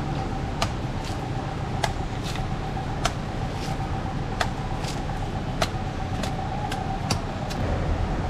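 Machete chopping the husk of a king coconut on a wooden block: about a dozen sharp chops, roughly two a second, over a steady low engine rumble of road traffic.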